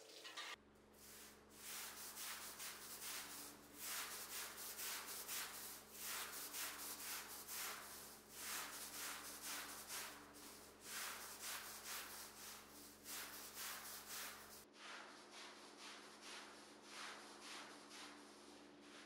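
Repeated rubbing strokes of a hand tool worked back and forth over a rug's pile, about two to three strokes a second, in a steady rhythm.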